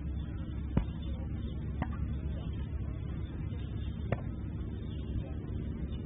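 Three sharp slaps of kicks and knee strikes landing on handheld striking pads, about a second in, a second later and near the two-thirds mark; the first is the loudest. They sound over a steady low rumble.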